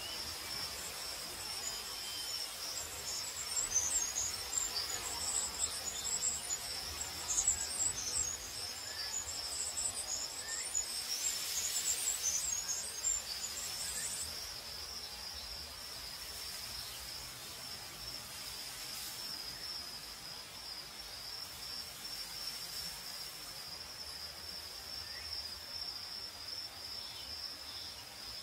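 Night ambience of crickets trilling steadily at a high pitch. For the first half a second, higher and patchier chirping rises above them, then stops about halfway through, with a brief soft hiss just before it ends.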